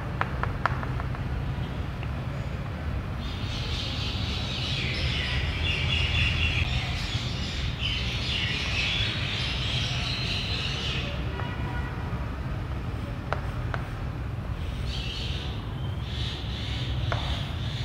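Chalk scratching across a chalkboard as lines are drawn, in a long stretch and then a shorter one near the end, with a few light taps of the chalk on the board. A steady low hum runs underneath.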